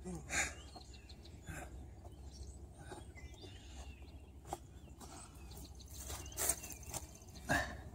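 Outdoor ambience: birds chirping over a low steady rumble, with a few sharp knocks and thuds, the loudest two near the end, from the phone being handled.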